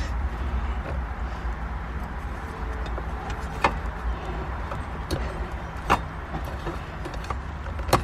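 A few sharp clicks and clinks of hand tools and shifter parts being handled, over a steady low rumble.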